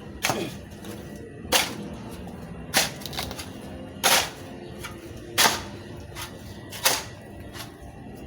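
Repeated sharp strikes of a tool at a steady working pace, about one every second and a half, six loud blows with fainter knocks between them.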